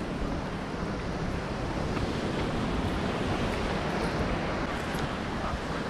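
Ocean surf washing steadily on the shore, with wind rumbling on the microphone.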